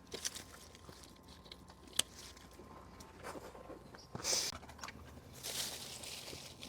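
Quiet rustling and scattered small clicks and snaps of handling, with one sharp click about two seconds in and a louder rustle a little after four seconds.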